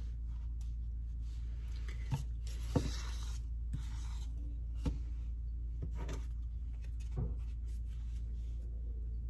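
Handling noises while cupcakes are frosted by hand: soft taps and clicks, with two brief rustles about three and four seconds in, over a steady low hum.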